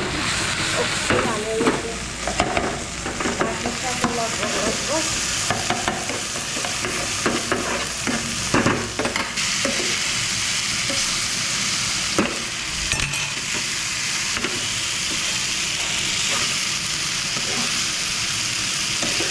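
Food frying in hot oil in a pan (tawa), sizzling steadily while a spoon or spatula stirs and scrapes against the pan in short strokes; the stirring is busiest in the first half, then the sizzle carries on more evenly.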